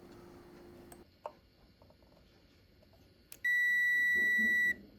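Multimeter's continuity beeper sounding one steady, high beep lasting a little over a second, just after a sharp click of the test probes touching, as the circuit where a capacitor was removed is tested for a short.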